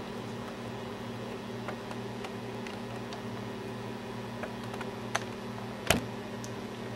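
Steady low hum and room noise, with a few faint ticks and one sharper click about six seconds in.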